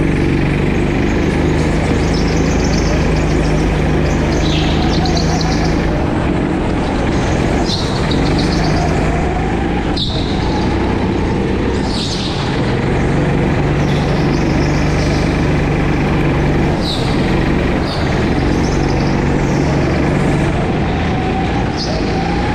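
Go-kart engine running hard, heard close up from the driver's seat, its pitch dropping off and picking up again as the kart goes through the corners. Short high squeals, several times, as the tyres slide on the smooth track floor in the turns.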